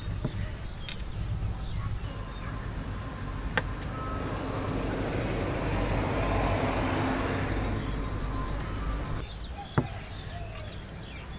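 A kitchen knife clicks a few times against a wooden chopping board as boiled duck eggs are cut in half, over a low rumble. A rushing noise swells through the middle and stops abruptly.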